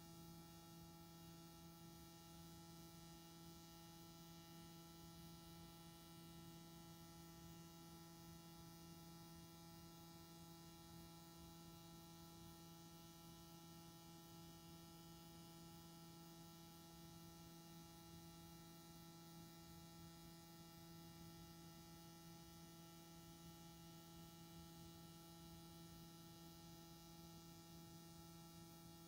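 Faint, unchanging electrical hum: a low buzz of several fixed tones over faint hiss, with no other sound. It is the sign of a recording fault that has wiped out the real sound track.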